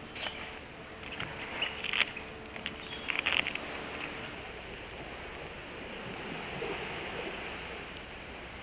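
Rotten wood and bark being broken off a fallen dead tree trunk by hand: several sharp cracks and snaps over the first few seconds, then only a steady background hiss.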